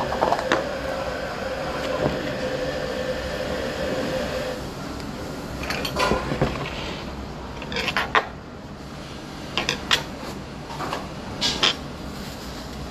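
Dishes and utensils clinking and knocking on a table, several separate sharp clinks in the second half, over a steady hum that stops about four and a half seconds in.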